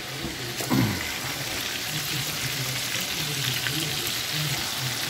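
Breaded chicken pieces shallow-frying in hot oil, a steady bubbling sizzle. A brief clunk sounds a little under a second in.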